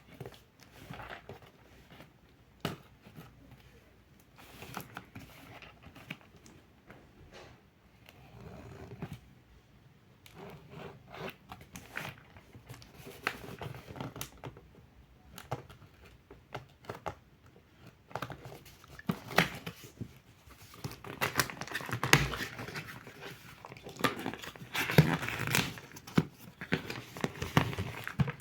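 Packaging being handled: crinkling plastic and rustling, tearing cardboard, with scattered sharp clicks and knocks. It gets busier and louder in the last third. No vacuum motor is running.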